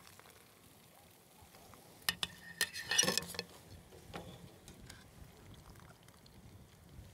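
A metal wire skimmer clinking and clattering against the cookware as boiled catfish pieces are lifted out and set into a clay bowl: a few sharp clinks about two seconds in, a short clatter around three seconds, and one lighter clink a second later.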